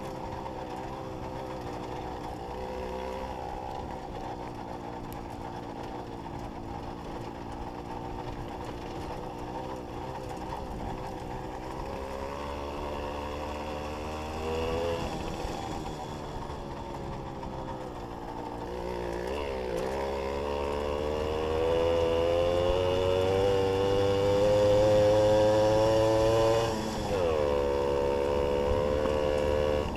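Jawa 555 moped's small two-stroke single-cylinder engine running while the bike is ridden. Its pitch rises with the throttle and drops suddenly about halfway through and again near the end. It gets louder in the last third.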